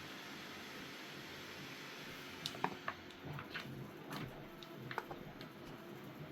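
Faint steady hiss, then from about two and a half seconds in a scatter of light, irregular clicks and taps over about three seconds.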